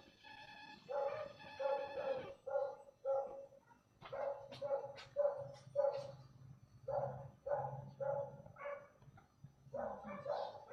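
A dog barking repeatedly in high-pitched yaps, about two a second, in several runs with short pauses between them.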